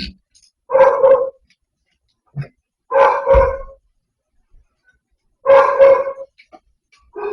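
A dog barking in short, loud bursts every two to three seconds, several of them in quick pairs, with silence in between.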